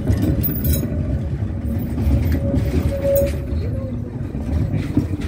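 Articulated tram rolling slowly past at close range, its running gear giving a steady low rumble, with a steady whine that is strongest about three seconds in.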